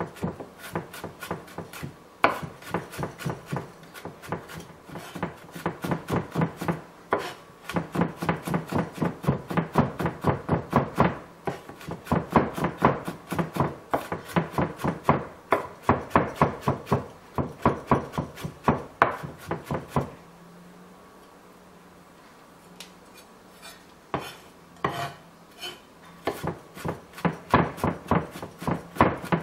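Kitchen knife mincing fresh garlic on a wooden cutting board: rapid, steady knocks of the blade on the wood. The chopping stops for a few seconds about two-thirds of the way through, then starts again.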